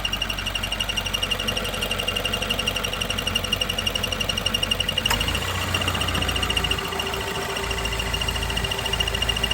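2016 Subaru WRX running warm with a rapid, even ticking at about eight ticks a second. The owner says the tick appears once the engine is warm, stops when the clutch pedal is pressed, and gets louder and faster with revs. A single sharp click comes about halfway through, after which a low hum joins in while the ticking goes on.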